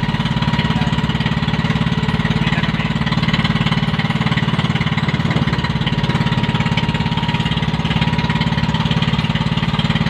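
Engine of a motorized outrigger fishing boat running steadily under way, a fast even putter with no change in speed.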